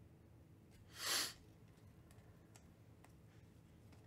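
A stack of Panini Mosaic football trading cards being flipped through by hand, with one short swish about a second in and a few faint clicks.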